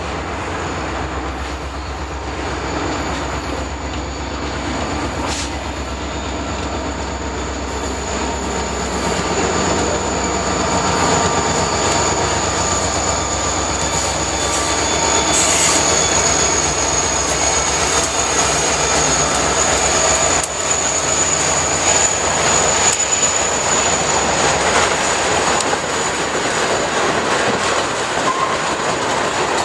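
Train running on the rails: a low rumble and rolling wheel noise with a few sharp clicks, growing louder about ten seconds in, with a thin, high, steady wheel squeal through the middle.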